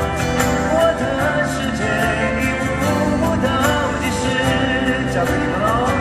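Live pop song at a concert: a band playing steadily with sung vocals over it.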